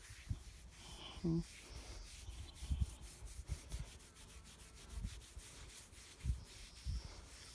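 A hand rubbing and scratching an animal's shaggy coat, a rough, scratchy rustle, with soft low thuds at intervals.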